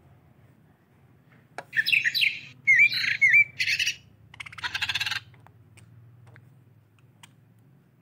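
Budgerigars chirping: a run of short, high chirps with quick dips in pitch, from about one and a half seconds in to about five seconds, ending in a harsher, scratchy squawk.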